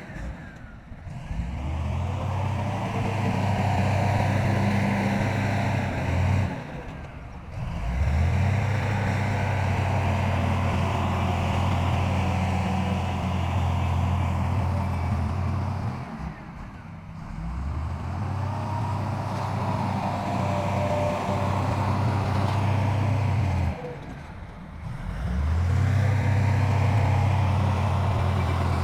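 Heavy diesel earth-moving machinery, excavator or bulldozer engines, running under load with a steady low engine drone and a mechanical clatter over it. The sound drops away briefly four times and comes back each time.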